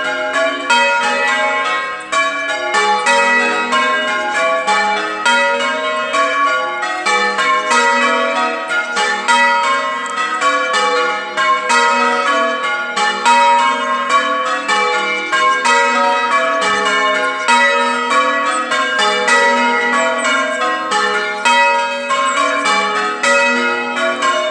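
Church tower bells rung in changes: a continuous, evenly paced stream of bell strikes, several a second, each note ringing on into the next as the bells sound in shifting order.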